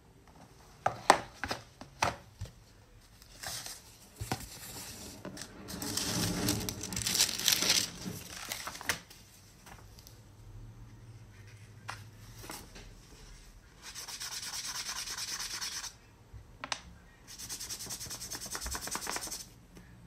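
Soft pastel sticks rubbed across paper. A few sharp clicks and knocks come in the first two seconds as the pastels and their box are handled. The loudest rubbing comes about six to nine seconds in, and two steady strokes of a couple of seconds each come near the end.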